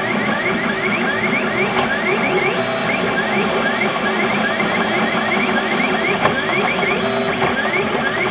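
XYZ da Vinci Mini W+ 3D printer printing: its stepper motors give quick, repeated short rising whines, about three a second, as the print head moves, over a steady low hum.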